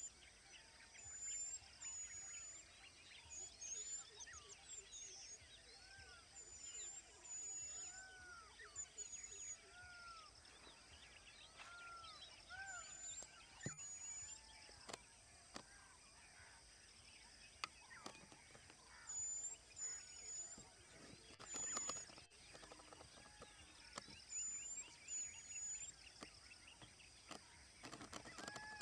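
Faint outdoor ambience of birds calling: many short arched whistles and high chirps, repeated at intervals over a steady hiss.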